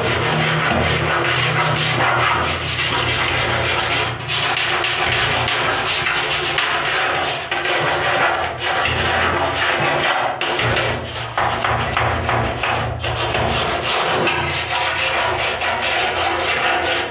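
A small stiff-bristled brush scrubbing the slats of a louvred light-steel bathroom door: a steady, scratchy back-and-forth rubbing close to the microphone.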